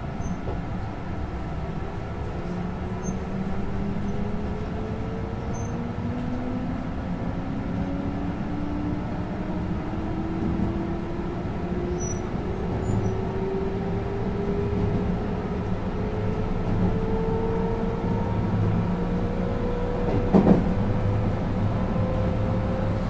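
JR West 221 series electric train heard from inside its motor car: the MT64 traction motors and gears whine over the steady running noise, their pitch rising slowly as the train gathers speed. A single sharp knock comes near the end.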